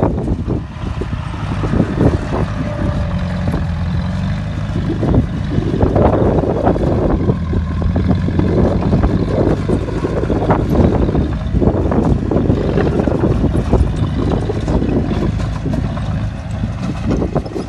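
Bulldozer's diesel engine running under load while pushing dirt, its loud, rough sound swelling several times as it works.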